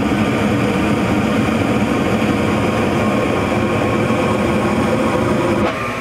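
Gas furnace firing: the burners and inducer fan run with a steady mechanical noise, then the burners cut out abruptly near the end. This is short-cycling, which the owner puts down to a dirty flame sensor failing to prove flame, so the board shuts the gas off.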